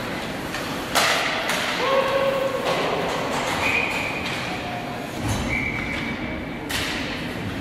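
Ice hockey game: sharp knocks of sticks and puck against the boards and ice, a few about a second in and one more near the end, over the steady din of the rink. A few short held high tones sound in between.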